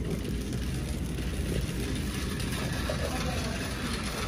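Shopping cart rolling along a hard supermarket floor, its wheels and wire basket giving a steady low rumble.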